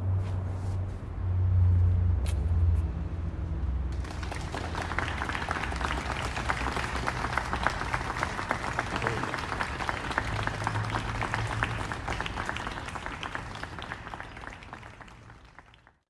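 Audience applauding, starting about four seconds in and fading out near the end. Before it, a loud low hum.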